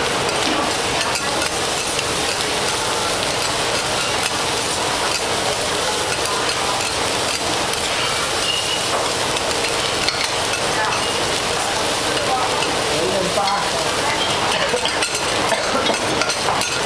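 Egg fried rice sizzling steadily on a hot flat steel griddle while it is stirred and tossed, with two metal spatulas scraping and tapping on the steel.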